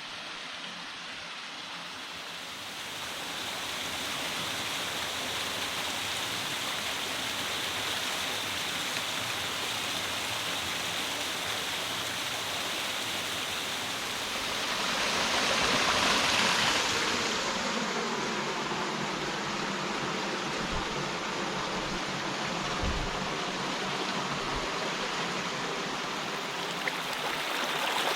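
Rushing water, a steady, even rush typical of a stream or river running through a rocky gorge. It grows a little a few seconds in and swells louder for a couple of seconds about halfway through.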